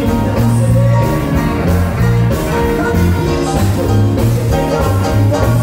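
Live band playing an instrumental passage through a PA, with the keyboard played by hand, changing low bass notes and a steady beat.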